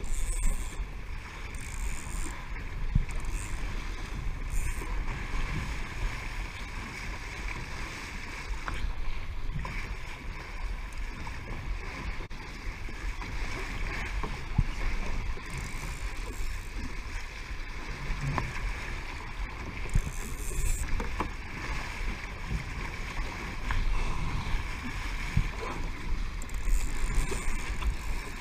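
Water rushing and splashing along the hull of a Laser sailing dinghy moving through choppy water, with wind buffeting the microphone as a steady low rumble. The level rises and falls with the waves, with a few brief hissy splashes of spray.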